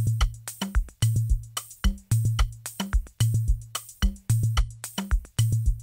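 Programmed drum loop playing back: a deep kick ringing low about once a second under quicker percussion and hi-hat hits. A high-pass filter on the kick is being swept between 30 and 40 Hz to cut its lowest rumble.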